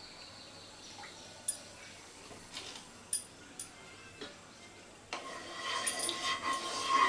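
Mustard oil poured into a non-stick kadai, with a few light clinks. From about five seconds in, a wooden spatula scrapes across the pan's surface as it spreads the oil. This scraping is the loudest sound.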